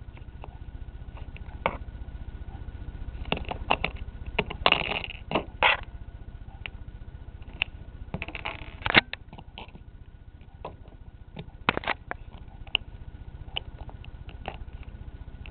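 Handling noise from fingers moving plastic Lego minifigures close to the camera: scattered light clicks and a few short rustles, the loudest in the middle, over a steady low hum and a faint steady high tone from the recording.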